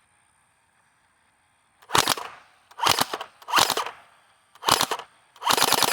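Gel Blaster Surge firing at a target: after a quiet start come four short bursts of rapid shots about a second apart, then a longer full-auto burst near the end.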